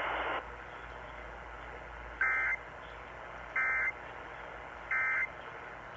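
Emergency Alert System end-of-message code: three short bursts of SAME digital data tones, about one and a half seconds apart, over a steady broadcast hiss. They mark the end of the alert.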